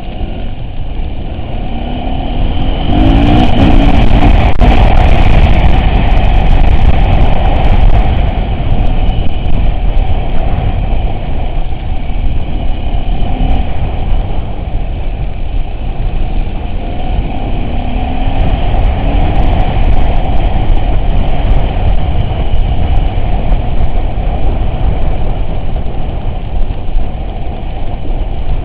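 Off-road vehicle engine running steadily at low revs, with a cluster of knocks and rattles a few seconds in and brief changes in engine pitch.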